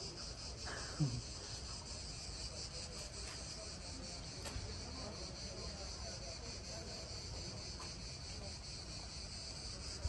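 Cicadas buzzing steadily in the trees, a continuous high pulsing drone. A short low falling sound, like a brief murmur, comes about a second in.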